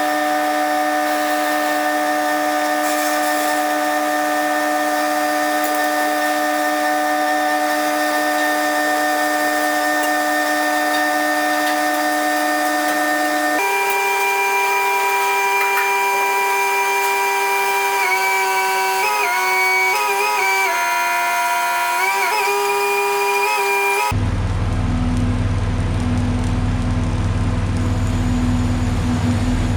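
Electric power tool motor whining steadily, its pitch stepping down once and dipping several times as it takes load. Near the end it gives way abruptly to a low rumble.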